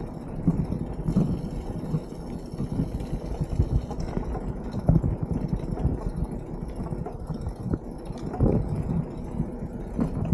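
Beach cruiser bicycle rolling along a rough road: an uneven low rumble of the tyres and frame, with frequent small knocks and rattles.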